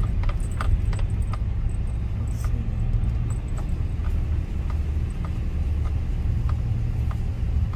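Car cabin road noise: a steady low rumble of engine and tyres as the car drives along, with scattered light clicks.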